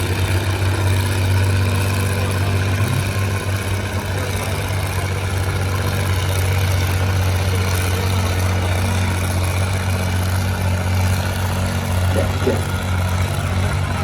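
Tractor engine running under load at a steady pitch while pulling a weight sled.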